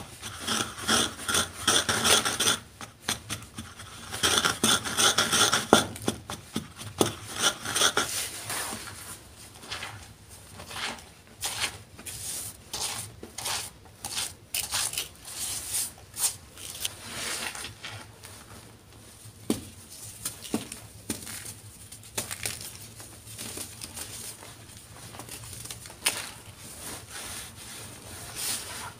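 Gym chalk being ground with a wooden pestle in a mortar, with rhythmic gritty scraping crunches. After about nine seconds it becomes sharper single crunches as fingers press the chalk, then quieter soft crumbling as hands squeeze the loose powder.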